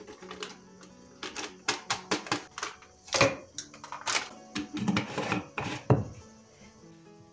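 Soft background music under a quick run of knocks and clatters from household cleaning and handling of objects, the loudest about three seconds in and just before six seconds, fading out near the end.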